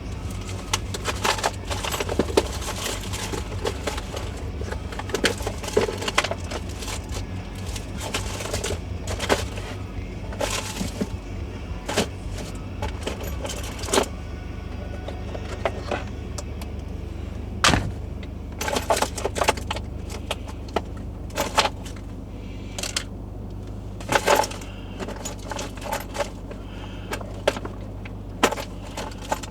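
Hand tools and small hard parts clicking and clinking as they are handled, a sharp knock every second or two, over a steady low hum.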